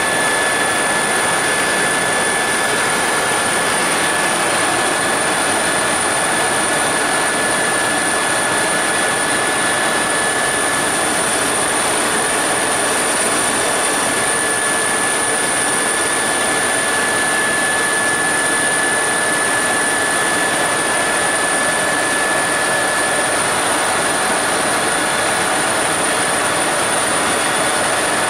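Steady loud cabin noise of a helicopter in fast forward flight, heard from inside the cabin. It is a dense, even rush with two thin high whines held at constant pitch.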